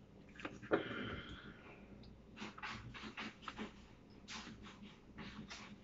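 A cat scratching litter sand in its litter box: runs of short, quick scratching strokes, with a single knock about a second in. The cat is digging without passing stool, which worries the owner because it has not pooped since yesterday.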